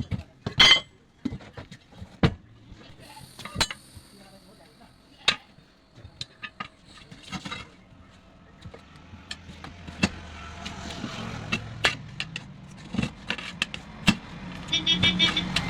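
Scattered sharp metal knocks and clinks of hand tools working on a tractor tyre during a puncture repair. A vehicle engine grows louder from about halfway through.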